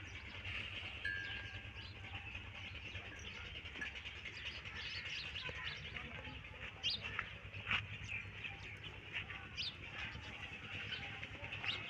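Small birds chirping and twittering continuously in the background over a steady low rumble, with a few sharp clicks about seven to eight seconds in.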